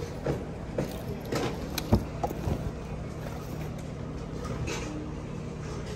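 Used shoes and bags being handled and shuffled in a bin, giving scattered light knocks and rustles, mostly in the first half, over a steady low hum.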